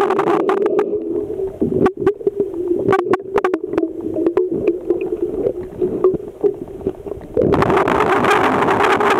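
Sound picked up underwater in a swimming pool: a steady low hum with a run of sharp clicks and taps as a finger presses repair putty into a leak on the pool wall. A rushing noise fades out at the start and comes back about seven and a half seconds in.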